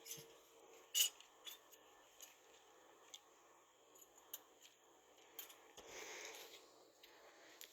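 Scattered faint clicks and taps, the sharpest about a second in, with a brief rustle near six seconds.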